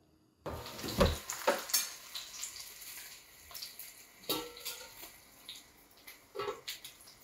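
Stuffed eggplant and tofu sizzling as they shallow-fry in oil in an enamel pan, starting suddenly about half a second in. Several knocks of tongs against the pan, the loudest about a second in.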